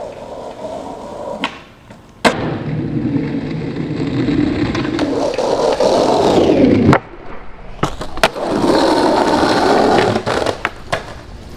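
Skateboard wheels rolling on asphalt, with sharp clacks of the board hitting the ground. A sharp clack about two seconds in starts a long roll that cuts off suddenly, then a few clacks, another roll, and more clacks near the end.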